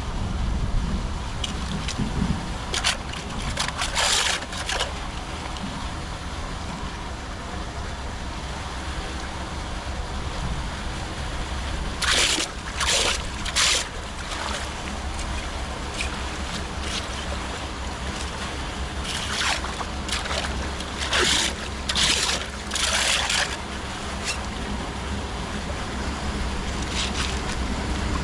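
Floodwater running and sloshing under a steady low rumble of wind on the microphone, broken by short bursts of splashing in groups of two or three, a few seconds in, near the middle and again later.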